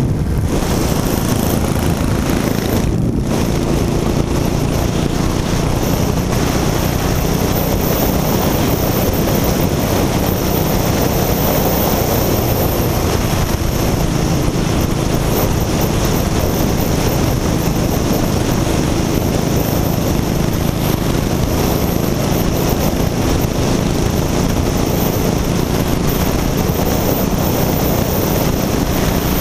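Motorcycle engine running steadily at cruising speed, heard from the saddle, mixed with constant wind rushing over the camera microphone.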